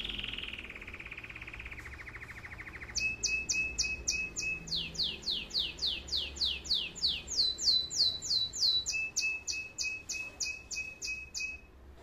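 Spanish Timbrado canary singing. A fast rolling trill comes first, then a long run of quick downward-sweeping notes at about five a second, some with a steady lower note under them. The song stops just before the end.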